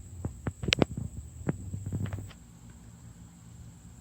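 A few sharp clicks and knocks over a low, steady hum, which cuts off suddenly a little over two seconds in.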